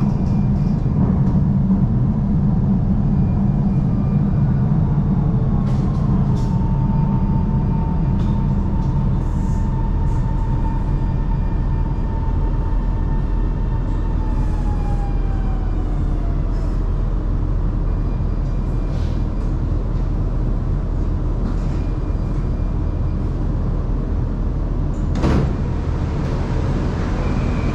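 Shanghai Metro Line 2 train's steady low hum. A few sharp clicks, and a whining tone that holds steady for several seconds and then glides down.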